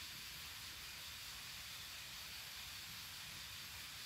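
Steady hiss of rain falling, even and unbroken, with no thunder.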